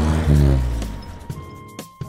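Cartoon forklift engine sound effect: a steady low engine rumble swells briefly, then falls in pitch and fades as the forklift drives off. About a second in, light music with short notes takes over.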